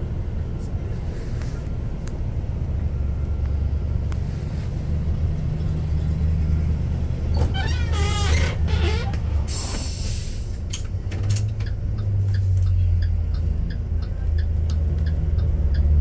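School bus engine running with a steady low rumble, heard from the driver's seat. A short burst of air-brake hiss comes about ten seconds in, and a turn signal ticks regularly, about three ticks a second, near the end.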